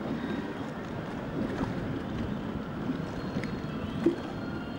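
Harbour ambience: steady wind and water noise, with a single sharp knock about four seconds in.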